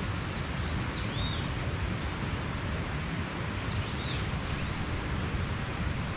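Mountain stream rushing steadily, with a bird giving a few short, high chirps over it, in two clusters: around the first second and again three to four seconds in.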